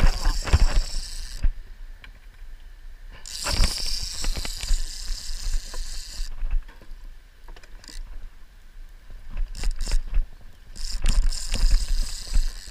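Multiplier fishing reel whirring in three spells of a few seconds each, with the line under heavy load and the rod bent hard. Scattered knocks and clicks of handling fall between the spells.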